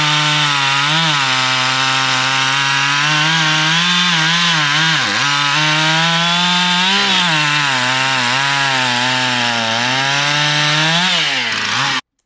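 Chainsaw running at high speed while cutting firewood, its pitch dipping and recovering several times as the chain bites into the wood. The sound cuts off suddenly near the end.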